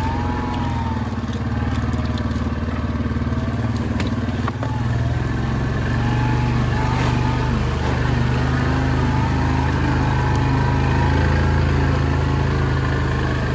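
Yamaha Grizzly 700 ATV's single-cylinder four-stroke engine running steadily under load as the quad wades through shallow creek water, pulling a little harder and louder from about six seconds in.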